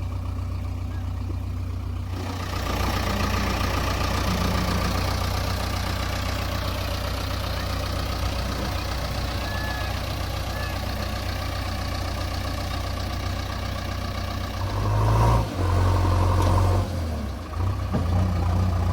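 Heavy diesel machine engine running steadily, with a louder surge between about fifteen and seventeen seconds in.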